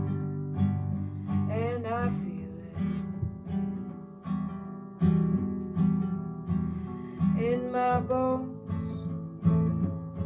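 Acoustic guitar playing a plucked accompaniment in a steady rhythm, with two short rising sliding notes, one about two seconds in and one near eight seconds.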